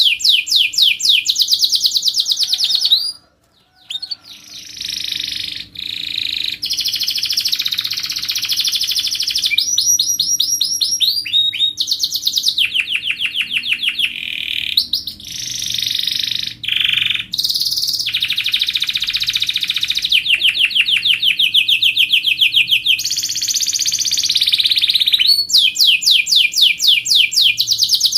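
Domestic canary singing vigorously: long runs of fast, high trills and rolls, one phrase after another, with a brief break about three seconds in.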